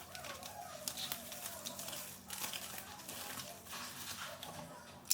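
Keyboard packaging being handled: irregular crinkling and rustling with scattered sharp crackles.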